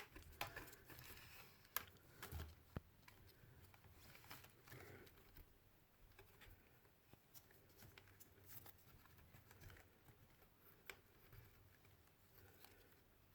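Faint handling noises: soft rustling of wires and a few small sharp clicks as wiring is routed through a fuse and relay box.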